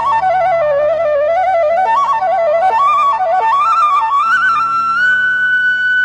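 Bansuri (bamboo flute) playing a slow, stepwise melody over a low sustained drone; about four seconds in the line climbs and settles on one long held high note.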